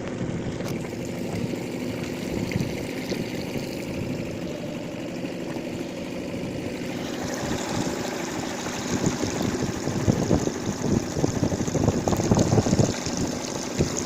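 Campfire burning with a steady low rumble. About seven seconds in a hiss sets in, and in the second half irregular gusts of wind buffet the microphone.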